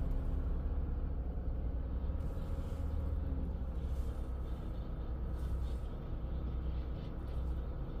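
Steady low rumble of a running vehicle engine with an even hiss over it; a low steady hum in it stops about three and a half seconds in.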